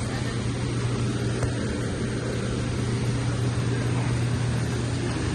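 A steady low mechanical hum over an even wash of noise, holding constant level throughout.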